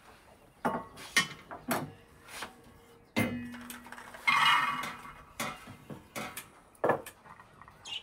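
Metal pans and enamel basins clanking as they are handled and set down on a wooden table, a string of separate knocks, one of which rings on briefly about three seconds in. Around the middle comes a short, denser rattling scrape.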